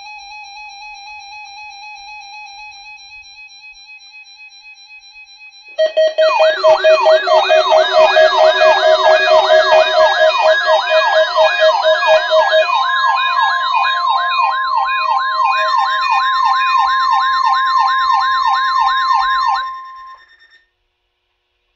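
Electronic alarm tones. A steady pitched tone for about six seconds, then several overlapping siren-like wails, each sweeping up and down about twice a second, with a steady high tone over them. All of it stops about 20 seconds in.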